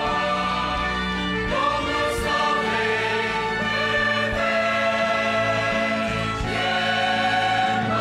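Mixed choir singing a hymn in sustained, full chords that change every second or two.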